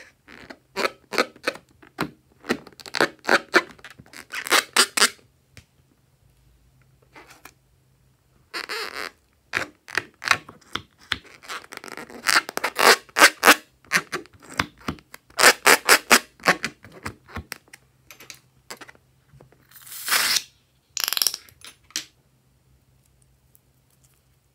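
Filled latex balloon squeaking as fingers rub and squeeze its skin: runs of short, sharp squeaks in bursts with pauses between them. Near the end come two short hissy noises.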